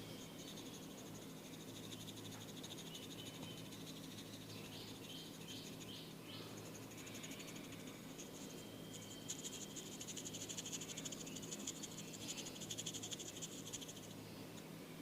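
Insects trilling faintly: a rapid, fine pulsing at a steady high pitch that grows louder for a few seconds in the second half, over a low steady hum.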